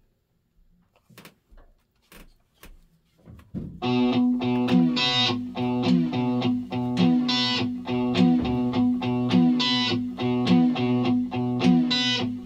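A few faint clicks, then about four seconds in guitar music starts playing through the Sansui 881 stereo receiver and its speakers, the receiver now passing sound after its no-sound fault was repaired. Repeating guitar phrases run over one steady held note.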